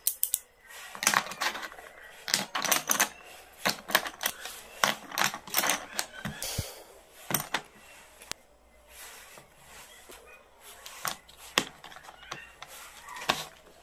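Pencils and pens clicking and clattering against one another and against a hard plastic pencil case as they are laid in and arranged, a string of irregular sharp taps and knocks, quieter for a few seconds past the middle.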